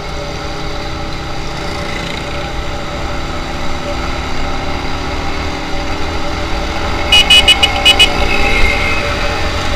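Motorcycle engine running steadily while riding in traffic, with road and wind noise. About seven seconds in, a vehicle horn gives a rapid run of about six short toots.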